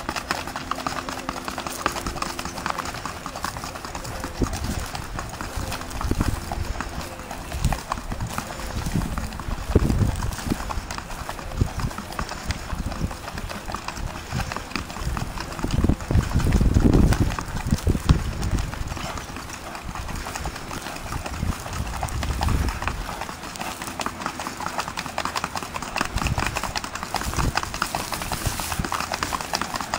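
Hoofbeats of a ridden mare moving at a quick, short-stepping gait on a packed sand track, in a rapid, even rhythm. A few louder low rumbles come and go, the strongest about midway.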